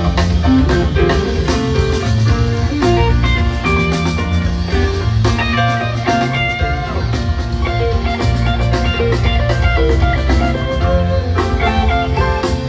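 Live rock band playing: electric guitar notes over bass and drums, loud and steady throughout.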